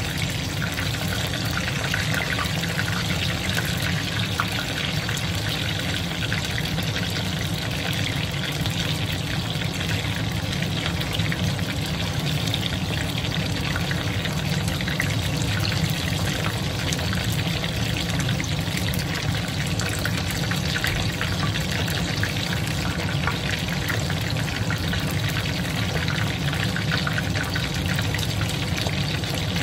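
Chicken karaage deep-frying in hot oil during the second fry: a steady sizzle with small crackling pops as the oil spatters.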